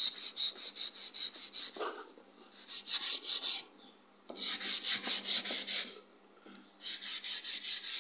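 Flat hand file rasping on a wooden hammer handle in quick back-and-forth strokes, about six a second, in four runs with short pauses between.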